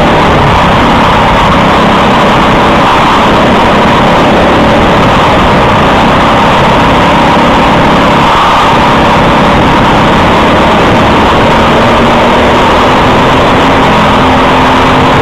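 Briggs & Stratton LO206 single-cylinder four-stroke kart engine running hard at racing speed, recorded close up from the kart itself: loud and steady, its pitch rising a little near the end.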